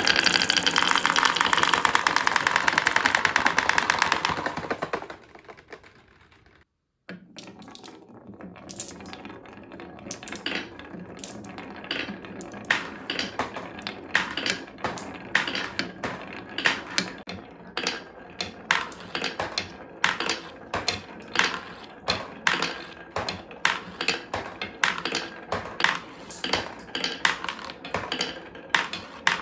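Glass marbles running down a wooden marble-run track, a loud fast rattle that fades out after about four seconds. After a brief break, a long series of separate sharp clacks follows, marbles knocking against the track and each other.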